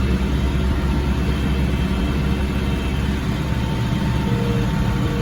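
Ford 7740 diesel tractor engine running steadily, heard from inside the cab. A very smooth, even hum with no knocks or misses.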